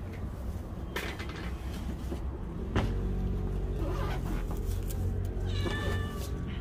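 A cat meowing once near the end, a short pitched call. Two sharp knocks come earlier, and a low steady rumble runs underneath from about three seconds in.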